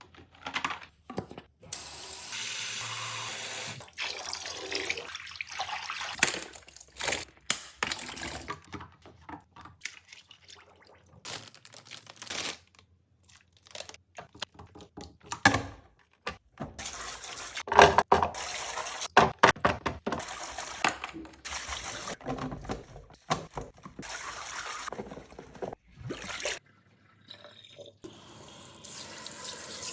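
Water running from a tap in short stretches, broken by sudden stops, with sharp clicks and knocks in between.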